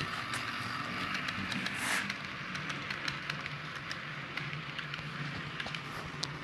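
A model railroad locomotive running on the layout: a steady motor hum with a patter of small wheel and rail clicks. A brief hiss about two seconds in.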